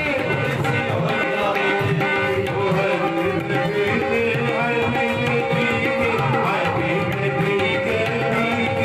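Tabla played continuously: a steady stream of strokes on the wooden right-hand dayan and the metal-shelled bass bayan, the drumheads ringing with a pitched tone.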